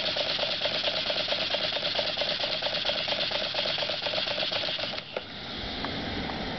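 Small double-acting model steam engine running fast: a rapid, even beat of exhaust puffs and hiss that cuts off suddenly about five seconds in as the engine stops, followed by a single click.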